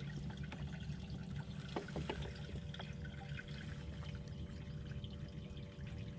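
Quiet water lapping and trickling against a fiberglass boat hull, over a low steady rumble and a faint hum, with a few faint taps about two seconds in.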